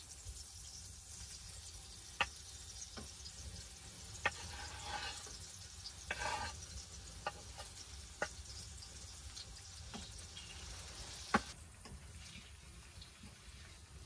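Meat sizzling in a metal plate on top of a wood stove, a faint steady hiss. Four or five sharp clicks are spread through it as pieces are laid in.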